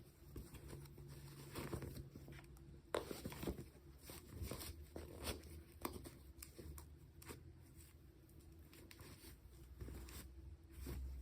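Hands handling and opening toy packaging: scattered rustling and crinkling with small clicks and taps, and a sharper click about three seconds in.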